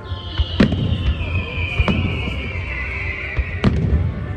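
Firework display: three sharp bangs of bursting shells over a steady low rumble, with a long whistle that slowly falls in pitch and ends at the last bang.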